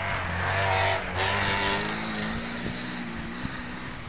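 Engine of an off-road 4x4 revving hard while it drives through deep snow, its pitch climbing and wavering under load. It then eases back to a steadier drone.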